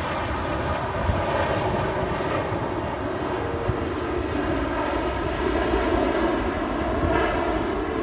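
Jet engine noise from an Airbus A330neo's Rolls-Royce Trent 7000 turbofans: a steady, even rush with a low rumble underneath.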